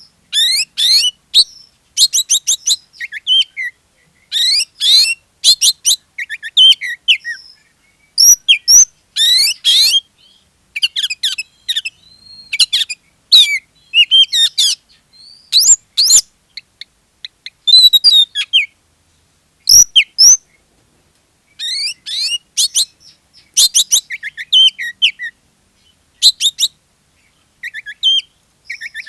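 Oriental magpie-robin singing in full, loud song: a steady run of short, varied phrases of quick whistles, sweeping notes and trills, with brief pauses between phrases.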